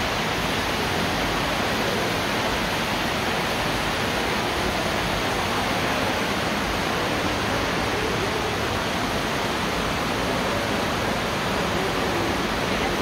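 Loud, steady, even rushing noise with no pitch and no change, switching on and off abruptly.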